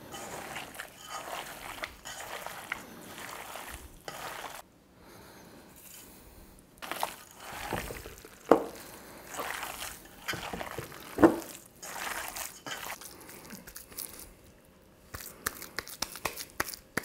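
Hands squishing and kneading raw ground beef mixed with eggs, oats and cheese in a stainless steel bowl: wet squelching throughout, with two sharper slaps about halfway through and a patter of small clicks near the end.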